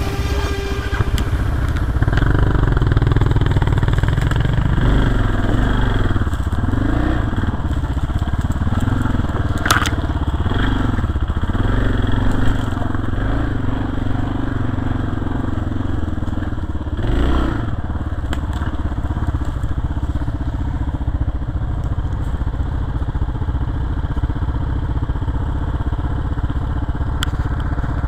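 Enduro motorcycle engines running over rough ground, with the revs rising and falling several times in quick succession between about five and eleven seconds in. Scattered rattles and knocks run through it, and there is a heavy thump about seventeen seconds in.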